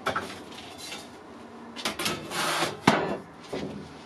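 A thin steel sheet being handled and laid on a wooden workbench: a few knocks at the start, a scraping slide about two seconds in, then a sharp clank as it comes down, and one smaller knock after.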